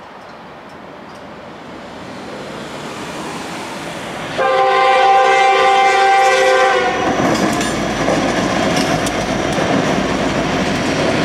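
NYS&W SD60 diesel freight locomotive approaching, its rumble growing louder. A little over four seconds in it sounds one long blast on its multi-chime air horn, about two and a half seconds long. The locomotive's engine and wheels then pass close by, a loud rolling rumble with clickety-clack from the rails.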